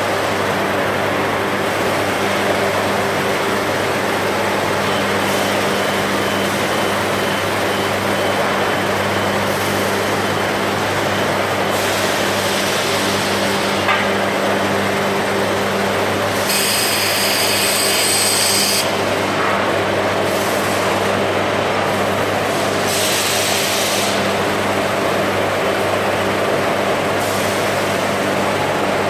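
Steady factory-floor machinery noise with a constant electrical hum, a sharp click about halfway through, and two bursts of high hissing, one lasting about two seconds and a shorter one a few seconds later.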